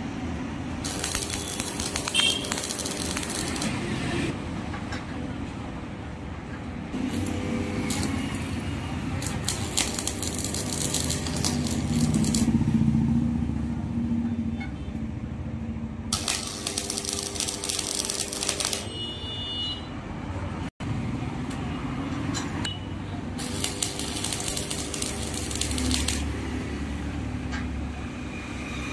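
Stick (arc) welder tack-welding steel bars onto a grill frame: the arc crackles in about four bursts of one to three seconds each, with a steady low hum between them.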